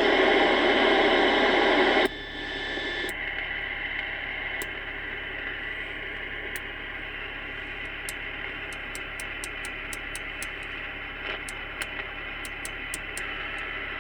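TriStar 790DX CB radio receiver hissing with loud static, which drops sharply to a much quieter hiss about two seconds in. Light clicks tick through the rest, more often in the second half.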